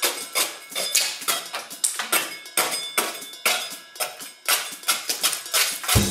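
Hand scraper scraping peeling paint and crumbling plaster off a wall, in quick, irregular strokes about three a second.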